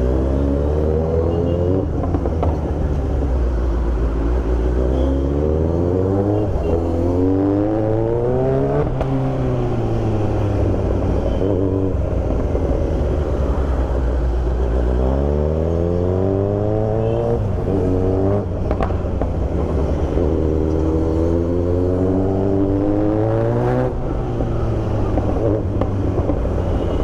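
Kawasaki Z900's inline-four engine through an Austin Racing aftermarket exhaust, ridden on the road: the engine note climbs in pitch under throttle and falls back again several times as the rider accelerates and eases off.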